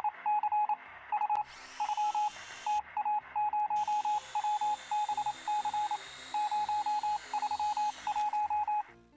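Electronic beeping sound effect: short beeps at one pitch in quick clusters, repeating over and over. A hiss comes in about a second and a half in, stops briefly near three seconds, and returns until near the end.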